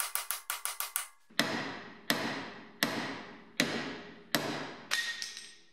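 Hammer striking metal on a tool fitted to the sway bar end-link nut of a Mercedes W123's front suspension, working at a stuck joint. A fast run of taps in the first second, then six heavier blows about 0.7 s apart, each ringing briefly.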